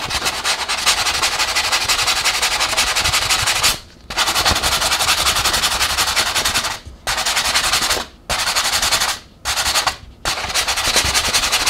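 Fast hand-sanding strokes of 220-grit sandpaper across the rough knife-cut corner of a foam insulation board, a rapid scratchy rubbing that pauses briefly about four seconds in and a few times in the second half.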